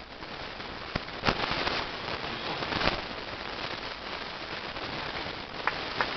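Scattered applause from a small crowd of spectators, with a few louder single claps standing out.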